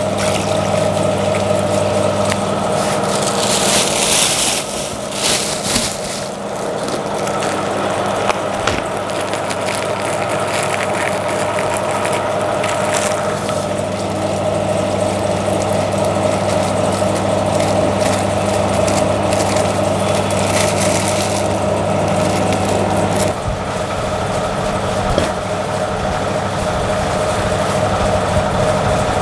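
Steady mechanical hum of an aeration air pump, one partial of which drops out about three-quarters of the way through. Over it, plastic wrapping crinkles and rustles as the shipping box is handled, loudest a few seconds in and again about halfway and two-thirds of the way through.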